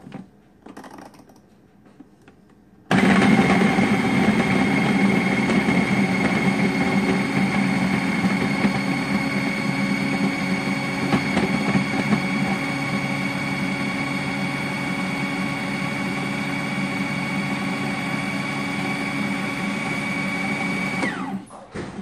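Food processor motor switching on about three seconds in and running steadily with a high whine, pureeing cooked cauliflower with butter, cream and cheese; it switches off near the end, the whine falling as the blade winds down.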